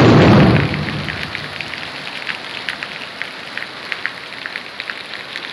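Heavy rain pouring onto a flooded street, with many sharp ticks of drops striking water and hard surfaces. A loud thunderclap that broke just before is dying away over the first second.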